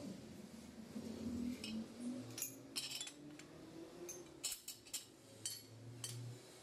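Irregular light metallic clinks and taps as a steel template plate and a locating pin are handled and fitted onto a cast-iron truck brake drum.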